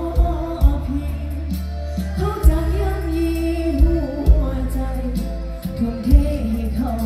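Loud stage-show band music with a singer, over heavy bass drum hits and sustained bass notes, played through a PA system.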